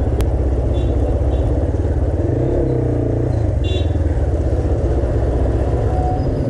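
Motorcycle engine running at low revs as the bike rolls slowly along a street, a steady low throb, with one sharp click just after the start.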